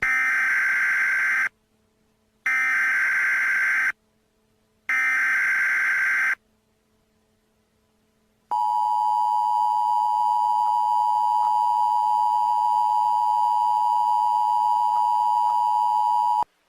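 Emergency Alert System SAME header: three bursts of warbling digital data tones, each about a second and a half long with a second's gap between them. These are followed by the steady two-tone EAS attention signal, held for about eight seconds and cutting off suddenly. Together they announce the start of a new alert message.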